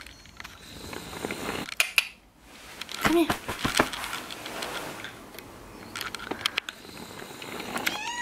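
A domestic cat gives a short meow that rises and falls near the end, over scattered light clicks and rustling; a woman's voice calls "come" about three seconds in.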